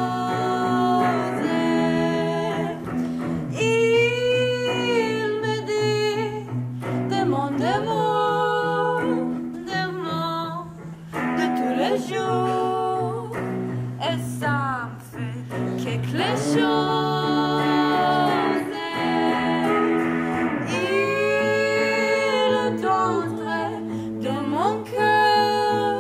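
Two women singing a song over an instrumental accompaniment that holds steady low notes.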